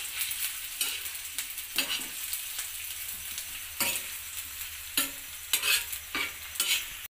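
Sliced onions sizzling in hot oil in a flat black pan, stirred with a steel spatula that scrapes and clacks against the pan at irregular moments; the onions are being fried until golden brown.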